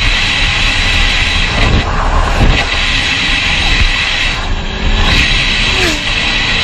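Loud steady rumble and hiss of a moving vehicle: road and wind noise with no clear single event.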